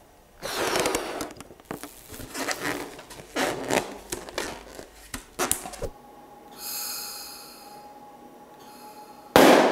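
A rubber balloon being handled and tied off, with irregular rubbing and squeaking noises. A steady tone comes in about six seconds in, and near the end a sudden loud bang as the balloon bursts when the laser beam hits it.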